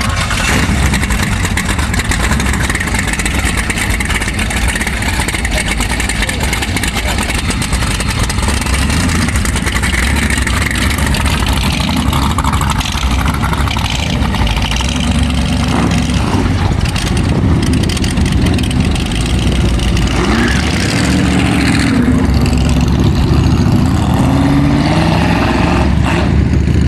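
Boss Hoss motorcycle's LS 454 V8 running loud and steady, then pulling away alongside other motorcycles. Engine pitch rises and falls with revving in the last few seconds.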